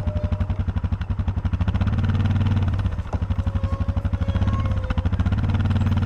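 ATV engine running at low speed under load as it tows a bundle of chained logs, a steady rapid pulsing that swells louder about two seconds in and again near the end.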